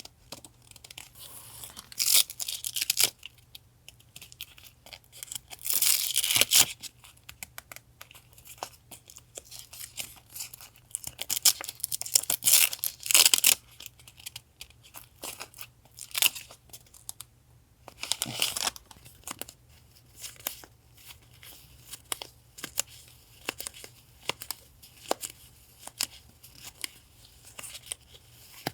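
Paper being torn by hand in several drawn-out rips, with crinkling, rustling and small taps of paper being handled between them.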